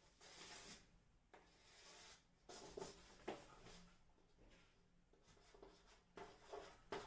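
Faint chalk strokes on a blackboard, a few short scraping sweeps as a large circle is drawn.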